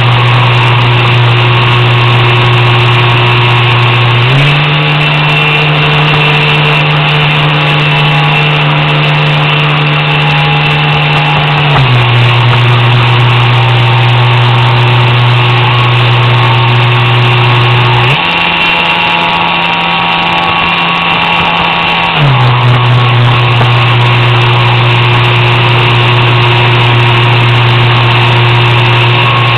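RC swamp buggy's 3900 kV inrunner brushless motor, geared 3.6:1 to a 9x9 propeller, running steadily with a loud humming whine. The pitch steps up about four seconds in, drops back near twelve seconds, rises again around eighteen and falls around twenty-two, as the throttle is changed.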